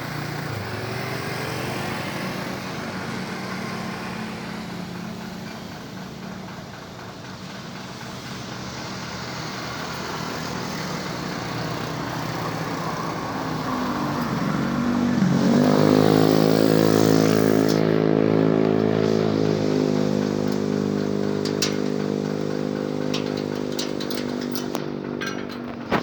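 Heavy trucks' diesel engines going by on a road. About fifteen seconds in, one engine's note rises, then holds steady and loud until near the end.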